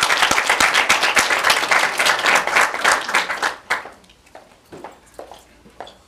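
Audience applauding, fading out a little under four seconds in, followed by a few scattered single claps.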